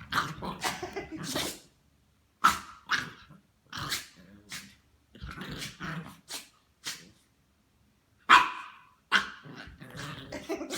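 Dog growling and barking in short, separate bursts, with one sharp, loud burst a little past eight seconds in.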